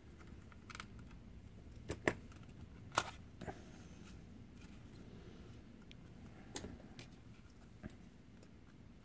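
Palm IIIxe PDA's plastic case clicking as it is handled and pried open with a plastic pry tool: a few sharp clicks, the loudest about two and three seconds in, with softer scattered ones later.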